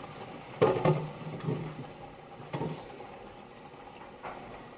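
Kitchen noise: a steady hiss with a few short knocks and clatters of cookware.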